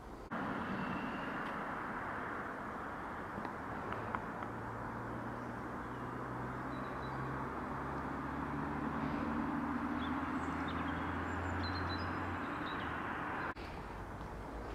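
A motor vehicle's engine running steadily under a rush of road noise. The sound cuts in abruptly just after the start and drops away abruptly about a second before the end.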